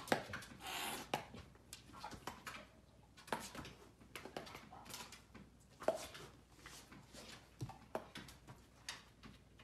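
A dog sniffing and snuffling at a cat in short breathy puffs, the first one about half a second in, with scattered light taps and scuffs as the two paw at each other around a wooden chair. Faint overall.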